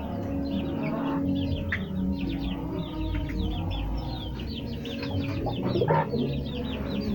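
Poultry and pigeon house flock: dense, rapid high chirping runs throughout, over a low steady drone.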